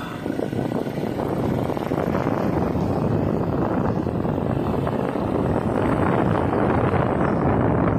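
Steady rushing noise of wind buffeting the microphone, mixed with the running of a vehicle, growing a little louder toward the end.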